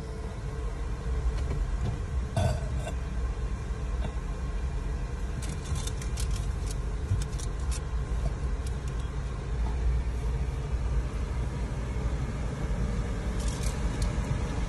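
Steady low rumble of a car heard from inside its cabin as it idles and rolls slowly forward, with a few light clicks scattered through it.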